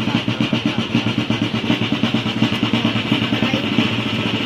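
Sienese contrada drum beaten with wooden sticks in a fast, steady rhythm of about six strokes a second, over the hubbub of a large crowd.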